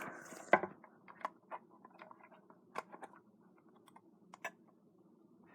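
Screwdriver tip clicking and scraping against a computer mouse's plastic shell as it is worked in to pry the shell apart, in scattered sharp clicks, the loudest about half a second in.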